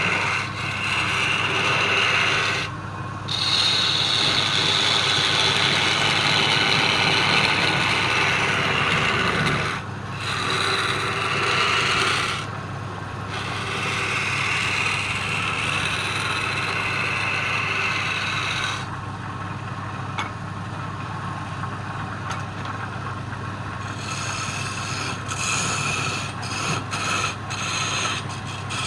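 Wood lathe running while the spinning wood is worked, a steady scraping rasp over the motor's hum. The scraping breaks off briefly about 3, 10 and 12 seconds in, and it is quieter from about 19 seconds on.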